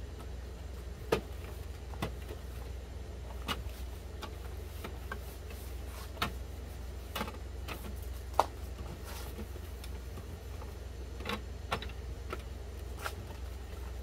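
Light clicks and taps at irregular intervals, about nine in all, over a steady low hum.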